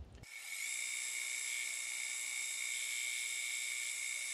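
Acraturn metal lathe switched on a moment in, its chuck then spinning at a steady speed with a high whine.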